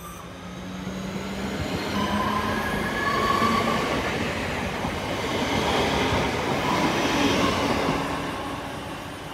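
Class 323 electric multiple unit accelerating past at close range: wheels running on the rails with a faint whine over the rushing noise. It builds over the first two seconds, holds, then eases off near the end.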